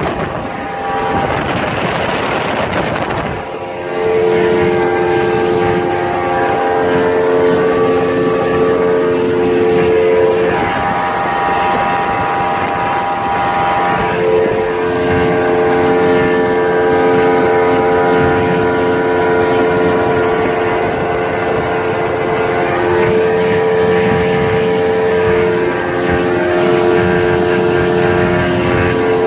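Yamaha 150 hp V6 two-stroke outboard (OX66 Saltwater Series) running steadily at high speed, about 5,200 rpm, with a rushing noise in the first few seconds.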